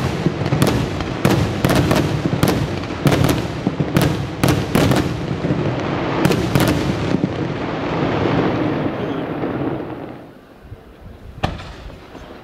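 Multibreak firework shells bursting in a rapid string of sharp salute reports, often two or three in quick succession, over a continuous rumble and echo. The bangs stop about seven seconds in and the rumble dies away. One last report comes near the end.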